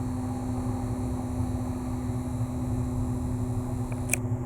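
Steady mechanical drone with a constant low hum from a running machine, plus one short click near the end.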